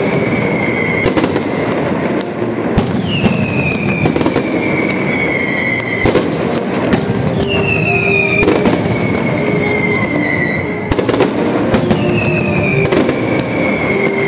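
Mascletà barrage: dense, continuous crackling and banging of strings of firecrackers going off in rapid succession. Over it come long whistles from whistling rockets, each falling steadily in pitch over two to three seconds; three start during this stretch.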